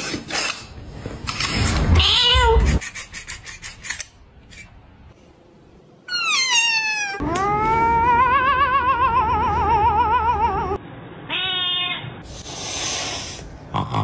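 Cats meowing: a short falling meow about two seconds in and another about six seconds in. Then comes a long wavering yowl of several seconds, followed by a short trilling call and a brief burst of noise.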